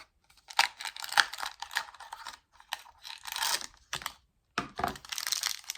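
Plastic toy packaging handled by hand: a run of small clicks and crinkling, rustling plastic, pausing briefly about four seconds in.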